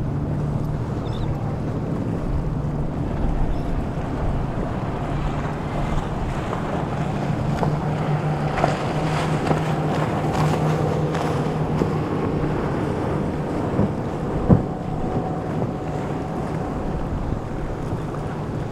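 Motorboat engines running with a steady low drone, mixed with wind on the microphone and water noise. There is one sharp thump about fourteen and a half seconds in.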